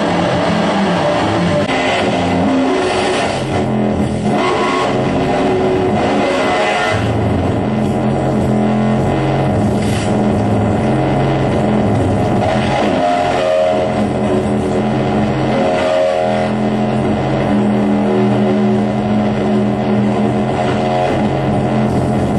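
Loud live band music: a drum kit with repeated cymbal crashes over a dense, noisy wall of sound with sustained low notes that shift pitch every few seconds.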